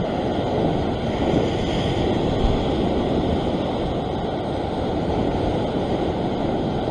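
Ocean surf washing over and around a rock ledge, a steady rush of sea water, with wind on the microphone.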